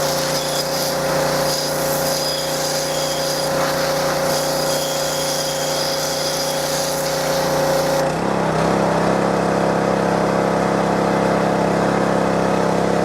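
Power Horse pressure washer's 6.5-horsepower gas engine running steadily under load, with the hiss of the high-pressure water jet. About eight seconds in, the spray hiss drops away and the engine note shifts in pitch.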